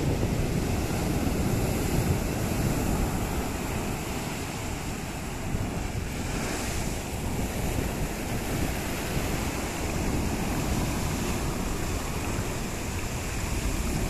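Sea surf breaking and washing over a flat rock shelf, foam hissing as the water spreads, with a swell of louder hiss about halfway through. Wind buffets the microphone with a low rumble.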